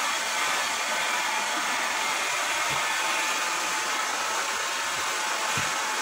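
Hand-held hair dryer with a diffuser attachment running steadily: an even blowing of air.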